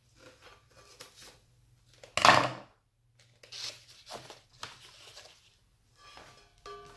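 Clear printed plastic film crinkling and rustling as it is cut and handled, in a string of short swishes with one much louder crackling rustle about two seconds in.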